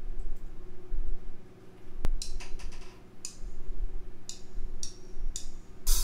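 Plugged-in Fender electric guitar rig humming steadily, with a sharp click about two seconds in and a few short scratchy clicks of hands and pick on the strings, until the guitar starts playing at the very end.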